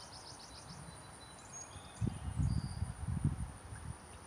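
An insect's rapid pulsed chirping fades out in the first second over a steady high whine, and a few short bird chirps come in. From about two seconds in comes irregular low rumbling noise on the microphone, the loudest sound, as the phone is moved.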